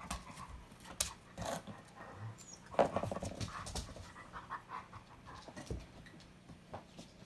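Dogs play-wrestling on a rug, panting, with scuffling and the occasional sharp click; the loudest burst comes about three seconds in.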